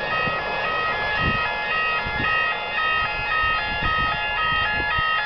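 Railway track warning horns, switched on to warn track workers of approaching trains, sounding a steady two-tone signal: a high note and a low note alternating a few times a second.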